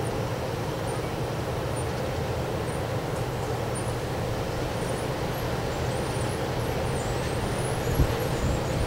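Strong wind blowing, a steady low rumble, with a single thump about eight seconds in.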